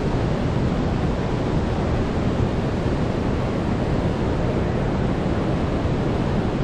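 Steady, deep rushing roar of Niagara Falls, the noise of a great mass of falling water, unbroken throughout.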